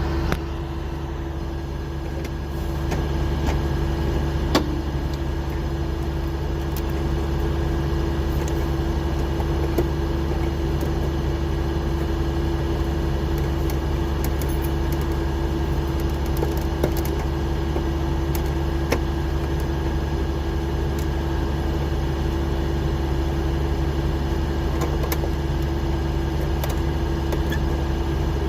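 Truck engine idling with a steady low hum. Scattered light clicks and knocks are heard as a plastic steering-column trim panel is worked loose.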